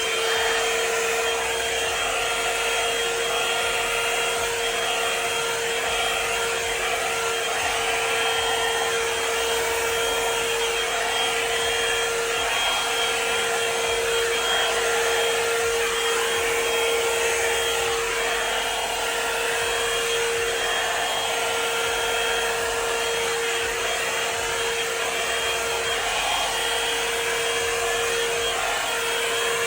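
Revlon One-Step hot-air brush dryer running steadily on its highest setting: a constant motor hum with a thin high whine over the rush of blown air.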